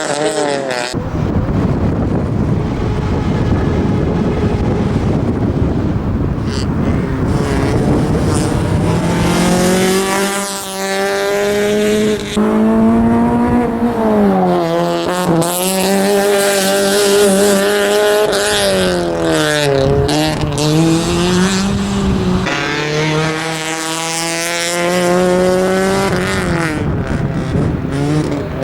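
Honda Civic's engine revving hard on a slalom run, its pitch climbing and dropping again and again as the car accelerates and brakes between the cones. For roughly the first third there is a dense rushing noise with no clear engine note.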